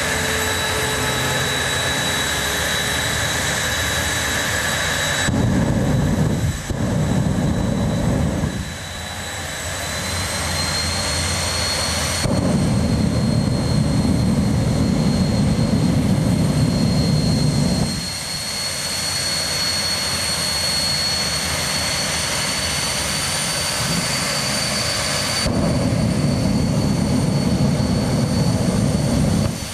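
Jet drag car's turbine engine running with a steady high whine that creeps slowly up in pitch. Three times the engine swells into a louder, deeper roar: about five seconds in, again for about six seconds in the middle, and near the end, when flame shows at the tail.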